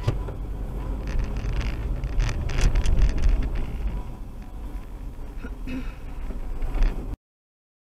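Car cabin noise while driving: steady low engine and road rumble with tyre noise, and a few short sharp knocks between about one and three seconds in. The sound cuts off abruptly about seven seconds in.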